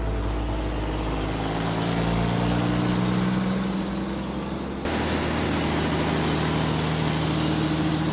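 An engine running steadily, with an abrupt change in its sound about five seconds in.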